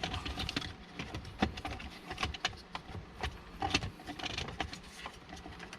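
Plastic centre console trim of a Porsche 997 being worked loose by hand: an irregular run of small clicks, taps and rattles.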